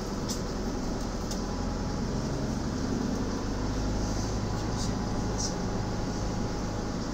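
Minibus engine and road noise heard from inside the cabin while driving, a steady low drone with a few short high clicks.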